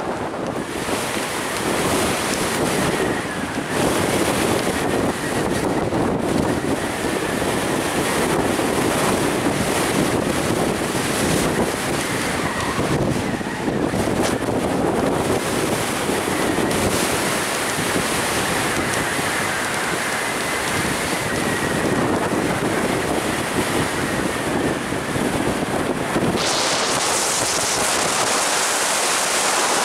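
Wind buffeting the camera's microphone: a steady rushing noise that turns thinner and hissier near the end.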